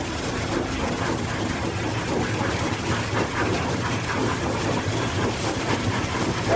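Locomotive and train running on the rails: a steady, noisy rumble of engine and wheels.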